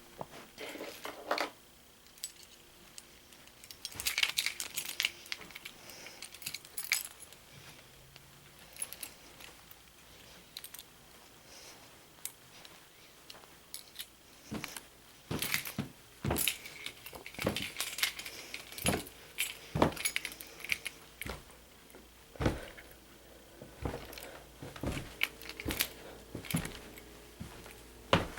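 Light metallic jingling with scattered clicks and knocks of handling, irregular, busiest a few seconds in and again past the middle.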